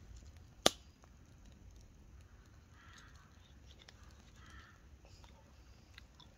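A single sharp click about a second in, over a faint steady background with a few soft rustles.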